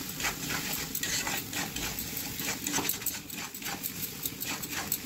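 Metal spatula scraping and knocking against a kadai in quick, uneven strokes while stirring onion and spice masala frying in oil, with a sizzle underneath.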